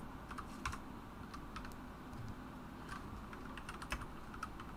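Faint, irregular light clicks and taps of football trading cards being handled and flicked through, about a dozen small ticks scattered across the few seconds.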